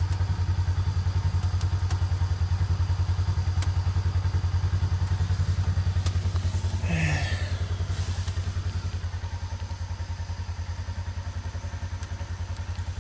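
Side-by-side utility vehicle's engine running with a steady, fast low pulsing that eases slightly about eight seconds in. A brief rising sound is heard about seven seconds in.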